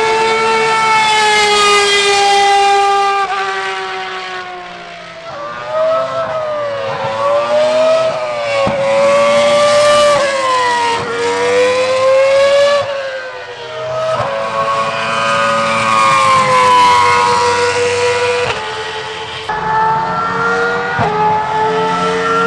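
High-revving Ferrari racing car engines at speed on a circuit, first an open-cockpit sports prototype, then a Formula 1 car. The engine note climbs in pitch through each gear and drops back at every upshift, rising and falling as the cars pass.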